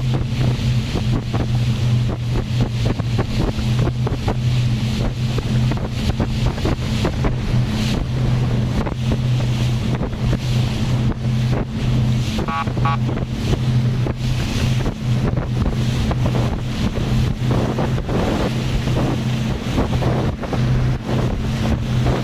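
Rigid inflatable boat running at speed: a steady low engine drone under heavy wind buffeting the microphone and water rushing and spraying past the hull.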